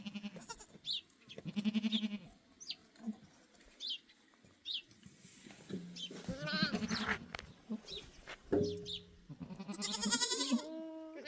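Goats bleating, several quavering calls one after another and overlapping, with short high chirps between them.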